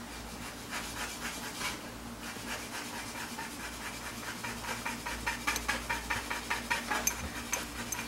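Small paintbrush swirled and scrubbed in a small glass jar of acetone, giving a quick run of light ticks and rubbing as the brush knocks against the glass.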